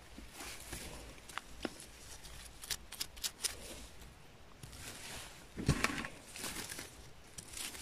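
Close handling noise from gloved hands trimming chanterelle stems with a small knife and dropping the mushrooms onto a pile in a plastic container: a run of light clicks and rustles, with one louder knock a little past halfway.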